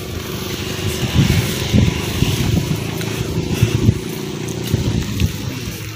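Low, steady rumble of motor traffic close by, rising and falling unevenly.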